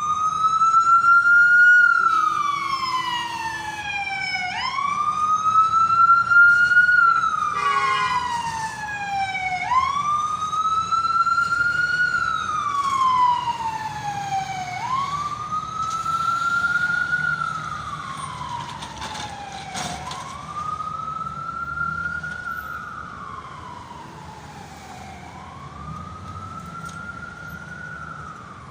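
Emergency vehicle siren on a slow wail, rising quickly and then gliding down in long cycles of about five seconds, fading gradually as it moves away. A brief horn-like tone sounds about eight seconds in.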